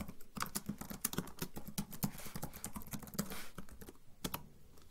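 Typing on a ThinkPad keyboard: quick runs of light key clicks that thin out to a few single presses near the end.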